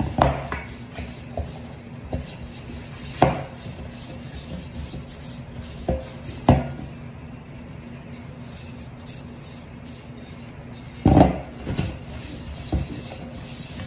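A metal Bundt pan being handled and set down on a countertop while it is floured: a few sharp clanks at irregular intervals, the last a quick double knock near the end, with soft rubbing between.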